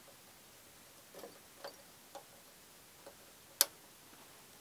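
Faint small clicks and taps from handling parts and the circuit board on a workbench, a few scattered light ones and one sharper click about three and a half seconds in.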